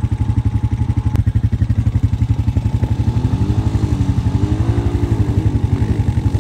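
ATV engine idling with a rapid, even pulse, about ten beats a second. Through the middle, another engine note rises and falls as a quad is ridden.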